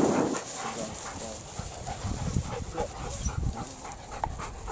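Dogs moving about on a grassy bank, with irregular low thumps of footsteps and wind or handling rumble on the microphone, loudest at the very start.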